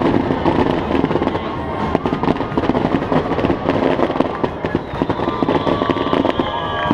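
Fireworks shells bursting in rapid succession: dense crackling and sharp bangs over a continuous rumble.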